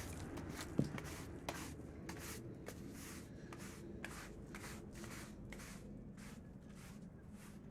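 Regular rhythmic scraping or brushing strokes, about two to three a second, fairly faint.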